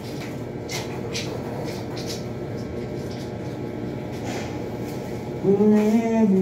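Low background noise with a few faint taps, then near the end a voice singing in held notes, much louder than what went before.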